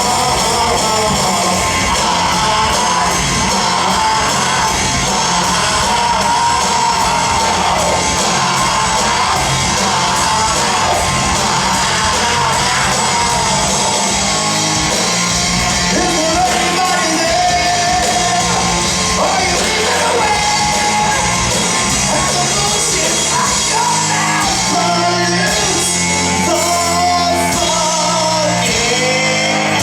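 Live rock band playing a song, with a singer's vocal line over the band.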